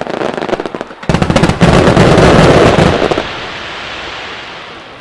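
Aerial fireworks fired as a rapid starmine barrage: a few sharp reports, then from about a second in a dense run of booms and crackles that is loudest for about two seconds, then a rolling echo that fades away.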